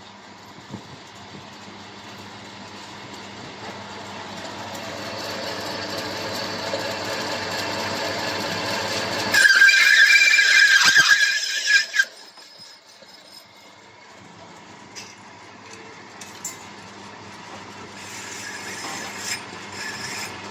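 Metal lathe cutting a thread into stainless steel pipe: a steady machine hum that slowly grows louder, then a loud high-pitched squeal for about two and a half seconds near the middle, after which it drops back to a quieter running sound.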